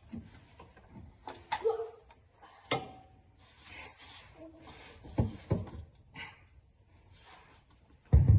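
Scattered knocks and clicks of objects being handled, a brief scraping hiss a little past the middle, two thumps after it, and a heavier thump near the end.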